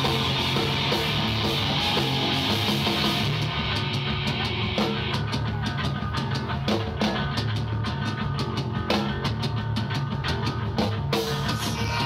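Live heavy rock band playing an instrumental passage on distorted electric guitars, bass guitar and drum kit. A sustained wash fills the first few seconds, then a driving, evenly struck drum beat comes in about three or four seconds in.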